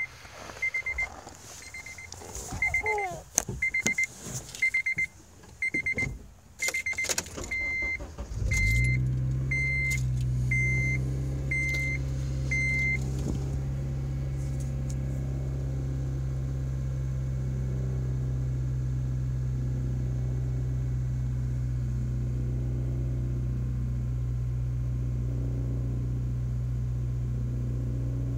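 Car warning chime beeping about once a second among the clicks and knocks of the door and seat, then about 8.5 s in the 2008 Honda Civic Si's 2.0-litre four-cylinder starts and settles into a steady idle. The chime stops soon after the engine is running.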